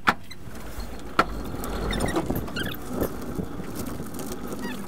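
A car being pushed by hand, rolling slowly over concrete with a steady low rumble from its tyres, with a sharp knock right at the start and another about a second later. Faint chirps sound over it.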